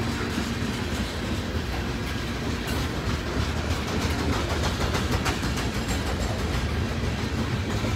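Freight train's coal hopper cars rolling past: a steady rumble of steel wheels on the rails, with faint clicks over the rail joints.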